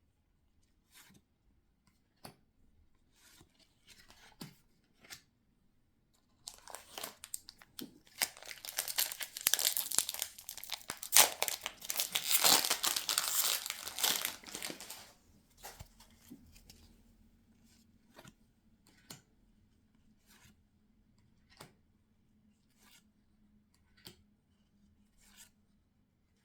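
Pokémon trading card packaging being torn open and crinkled for several seconds, starting about six seconds in. Before and after it come scattered light clicks and taps of handling.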